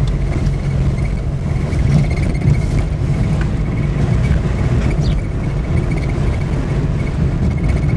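Peugeot 106 driving, heard from inside the cabin: a steady low rumble of engine and road noise that stays even throughout.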